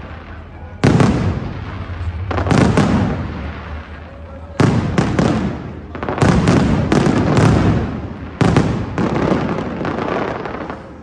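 Aerial firework shells bursting overhead in a string of loud booms, a second or two apart. Each bang trails off in a long rumbling echo.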